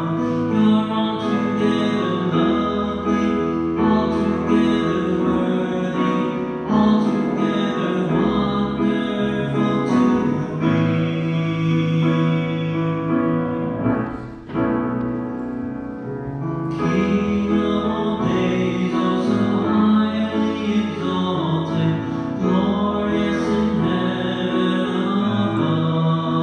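Church hymn sung with keyboard accompaniment, held notes moving slowly from chord to chord, with a brief break between phrases about halfway through.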